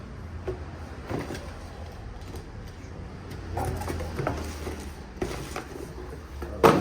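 Handling noises from a new automotive smoke machine being unpacked and handled: scattered clicks, knocks and rustles over a steady low hum, with a sharp knock just before the end.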